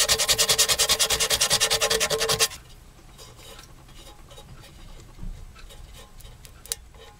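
Sandpaper block rubbed rapidly back and forth by hand over the copper side of a small sheet-metal tank, many even strokes a second, cleaning the copper for soldering; it stops abruptly about two and a half seconds in, leaving only faint scattered clicks.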